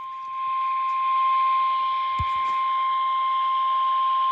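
NOAA Weather Radio 1050 Hz warning alarm tone: one steady, unbroken single-pitch tone over radio static hiss, the alert that signals a warning message is about to be broadcast. A brief low thump comes about two seconds in.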